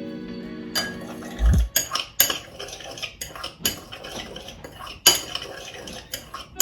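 A metal utensil clinking and scraping against a bowl in quick, irregular strikes, mixing seasonings into breadcrumbs. Background music stops about a second and a half in, with a low thump.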